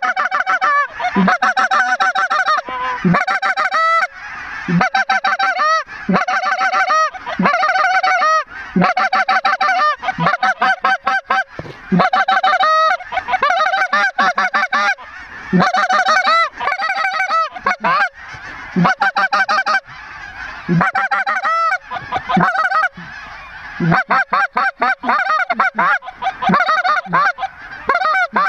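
Goose calls blown hard and fast at close range: a loud, unbroken run of short honks and clucks, one after another, calling to a large flock of geese overhead.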